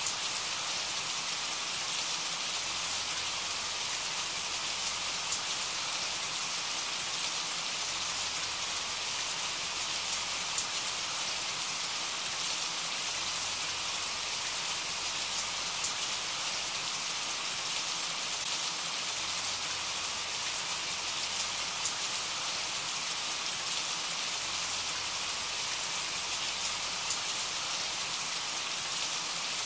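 Steady rain, a continuous hiss of falling rain with faint scattered drop ticks, used as an ambient background track.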